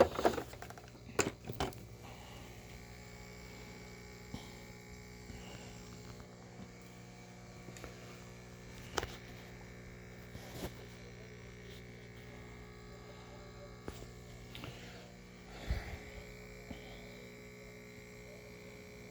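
Quiet steady electrical hum, with a few scattered clicks and knocks from something being handled.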